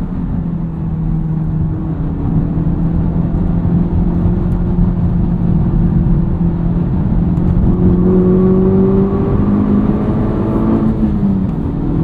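Honda Civic Type R FL5's 2.0-litre turbocharged four-cylinder, heard from inside the cabin through an MRT Street Race straight-through axle-back exhaust, droning at highway speed. From about eight seconds in the pitch rises as the car pulls harder, dips briefly near the end as the revs fall, then climbs again.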